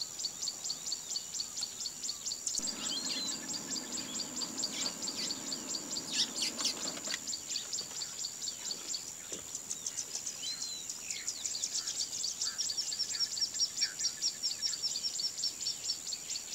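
Bush ambience: a steady high insect buzz pulsing about eight times a second, with a few short bird chirps. A lower rumbling noise comes in for about four seconds near the start.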